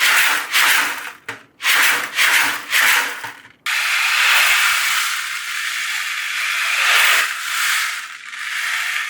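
Ocean drum: the beads inside roll across the drumhead to imitate surf. It starts with a few short, quick swishes, stops briefly about three and a half seconds in, then goes into a long, continuous wash that swells and ebbs like a wave breaking and drawing back.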